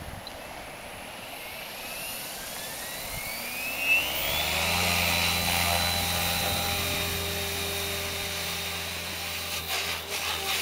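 MSH Prôtos 500 electric RC helicopter spooling up: the brushless motor's whine rises in pitch over about three seconds, then holds steady with the main rotor's low hum once the head is up to speed. A few brief thumps near the end.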